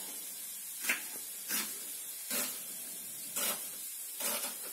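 Kitchen knife cutting an onion on a small wooden cutting board: about five separate short cuts at uneven intervals, over a steady faint hiss.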